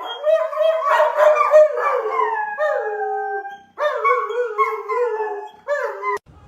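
Dog howling in long, wavering notes, in two stretches with a short break a little past the middle, then cut off abruptly near the end.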